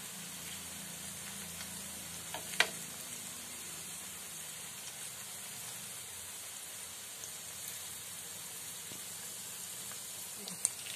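Marinated chicken pieces frying in oil in a pan on a low flame: a steady, gentle sizzle. A single sharp click about two and a half seconds in, and a fainter one near the end.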